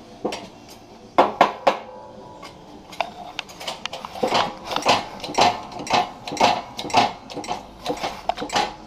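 Metal parts clinking and knocking against each other as they are handled. A few sharp clanks come just after a second in, then a run of knocks at about two a second through the second half.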